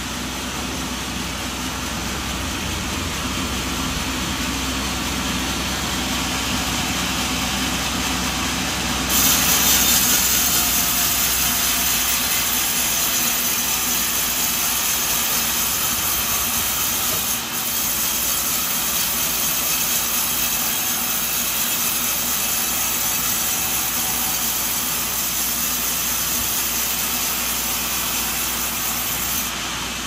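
Sawmill running with a steady engine drone. About nine seconds in, the saw blade starts cutting a coconut log, and a loud, high hissing cut carries on, dipping briefly once, until just before the end.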